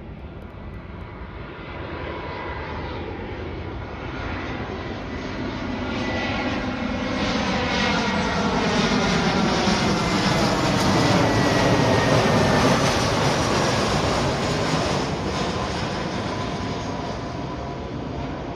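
Jet airliner flying past, its engine noise building to a peak about twelve seconds in and then fading. A high whine drops in pitch as it passes.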